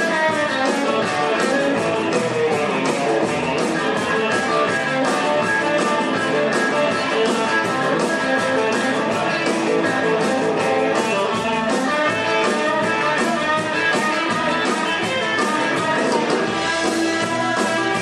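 Rock and roll band playing an instrumental stretch, with strummed guitar over a steady beat. It is a live recording taken straight from the mixing desk.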